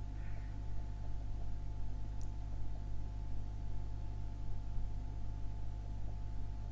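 Steady low electrical hum with a faint hiss, and one faint click about two seconds in.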